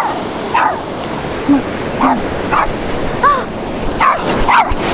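Small dog barking in short, high yaps, about one every half second, over the steady wash of breaking surf.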